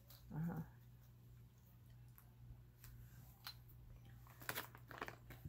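Faint crackles and sharp clicks of Fritos Scoops corn chips being handled, bunched together about four and a half seconds in, over a low steady hum. A brief murmur from a voice comes just after the start.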